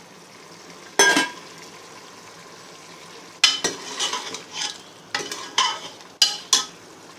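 Goat meat frying in ghee in a pressure cooker, a steady low sizzle, stirred with sharp scraping strokes against the pot: one about a second in, then a run of strokes in the second half.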